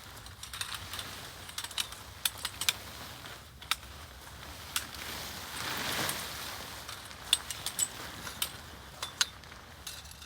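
Irregular light clicks and taps, about fifteen in all, with a swell of rustling that peaks about halfway through: objects being handled.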